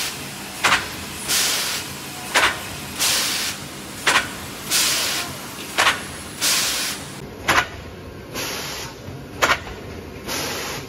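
Automatic gummy candy depositing line cycling: a sharp clack followed by a burst of compressed-air hiss, repeating about every 1.7 seconds as the pneumatic depositor strokes and the moulds index forward.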